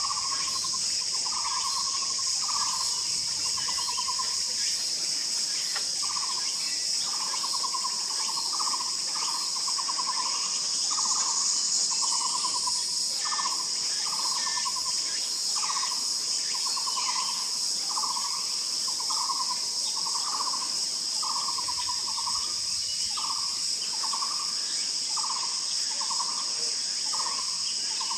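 A barbet calling: a long series of short, low, slightly trilled notes repeated about once every three-quarters of a second, with a brief pause about five seconds in. A steady high insect drone runs underneath.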